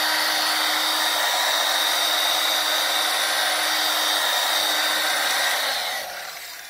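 Electric polisher with a felt pad running against car window glass, spinning steadily as it works glass polish into scratches made with 400-grit paper. Near the end its whine drops in pitch and fades as it spins down.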